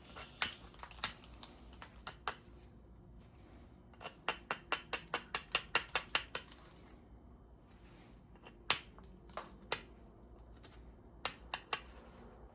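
Sharp clinking clicks of flint being tapped lightly, a few scattered strikes, then a quick run of about a dozen at roughly four a second, then a few more. This is the work of shaping the striking platform before a thinning flake is driven off.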